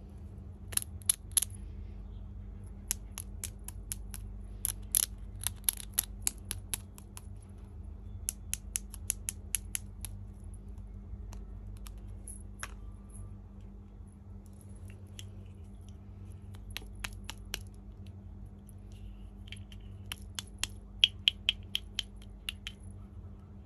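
Small hard plastic toy pieces clicking and tapping as they are handled, in irregular clusters of sharp clicks with pauses between, over a steady low hum.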